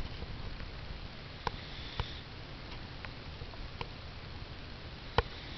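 A sleeper's small sniffs and mouth clicks, several short sharp ticks over a low steady room hum, the loudest near the end.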